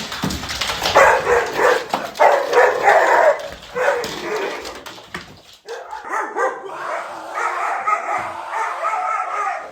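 A dog barking several times in short bursts, then a longer drawn-out whining call in the second half, its reaction to its owner's strange put-on voice.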